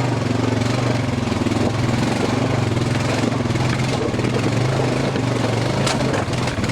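ATV engine, a single-cylinder four-stroke Honda Rancher, running at a steady low pitch while crawling over rocks, with clattering throughout. A sharp knock comes about six seconds in: a wheel striking a rock.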